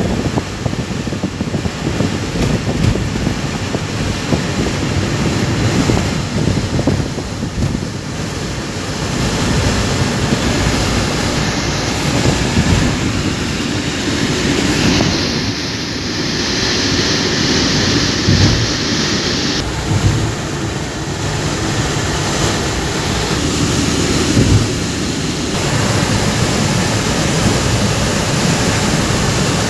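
Road and wind noise inside a car travelling at highway speed: a steady rumble of tyres and engine with rushing air. For about five seconds in the middle, a brighter hiss swells over it.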